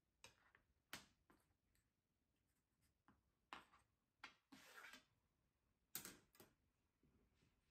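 Quiet handling of a carpenter's square on a wooden tabletop: a scattering of light clicks and knocks as the square is moved and laid down, with a brief rub about halfway through.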